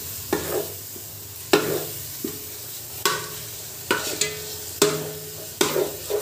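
A slotted spatula scraping and knocking against a steel pot as it stirs thick onion, ginger, garlic and green-chilli masala paste frying in ghee and oil. There are about ten strokes at an uneven pace, each leaving the pot ringing briefly, over a steady sizzle.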